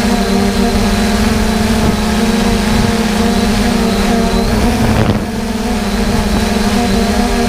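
Farm harvest machinery running steadily, a loud constant engine hum with a thin high whine over it. The sound briefly wavers and dips about five seconds in.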